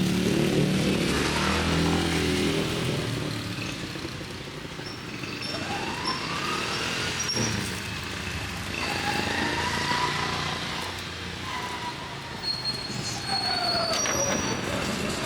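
Street traffic with motor vehicles passing, their engine pitch rising and falling as they go by.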